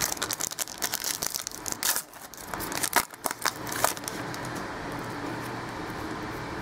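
Crinkling and crackling of a trading-card pack's wrapper and cards being handled, for about four seconds, then only a steady hiss.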